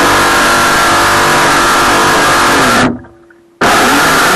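Radio-controlled boat's motor running at full throttle, heard close up from a camera mounted on the hull, with the rush of water under it. The throttle cuts about three seconds in and the sound drops away, then the motor comes back on suddenly half a second later.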